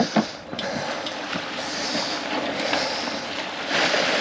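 Sea water rushing past the hull of a sailboat under way, swelling and easing several times, with a couple of short knocks at the very start.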